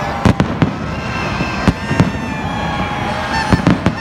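Aerial fireworks going off in a quick series of sharp bangs, several bunched together near the start, a pair about halfway through and another cluster near the end. Steady horn-like pitched tones sound underneath the bangs.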